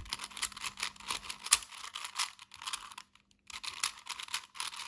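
Plastic 4x4 Rubik's Cube being turned quickly by hand: a rapid run of clicks and clacks as the layers snap round, with a short pause about three seconds in. The turns are the repeated 'sexy move' (R U R' U') sequence on the last-layer corners.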